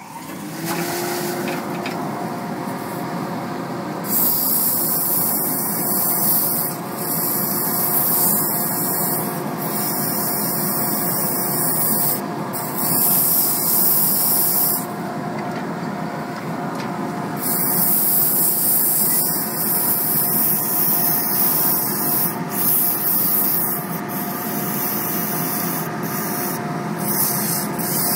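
A dust collector switching on and then running with a steady hum, while 150-grit sandpaper is held against a maple pepper-mill body spinning on a wood lathe. From about four seconds in, the sanding makes a loud hissing rasp that comes and goes in strokes of one to three seconds.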